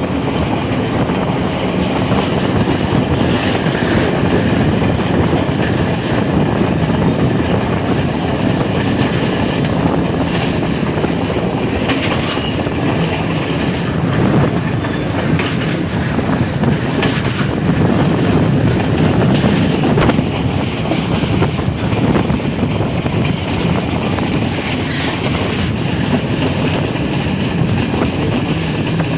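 A train running on the rails: a loud, steady rumble with occasional clacks from the wheels.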